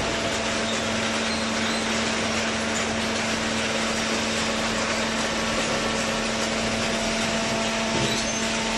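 Hydraulic baling machine running: a steady hum over constant mechanical noise.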